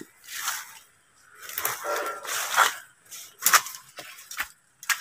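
Footsteps and plants rustling through undergrowth and leaf litter: soft rustles at first, then a few short sharp crunches or snaps over the last second and a half.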